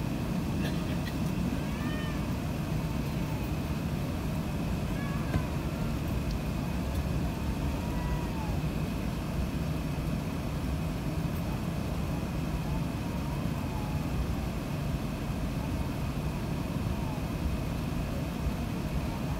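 Steady low rumble inside the cabin of an Airbus A380-861 taxiing on its Engine Alliance GP7200 engines, with a faint steady high whine over it. A few faint short squeaks sound over the rumble.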